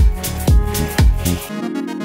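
Electronic background music with a drum beat about twice a second; about a second and a half in, the drums drop out and a steady bass note and a fast choppy synth pattern take over.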